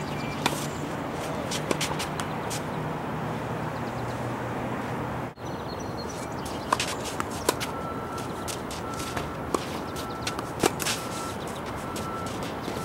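Tennis ball struck by racquets and bouncing on a hard court during a rally: a string of sharp pops at uneven intervals over steady background noise.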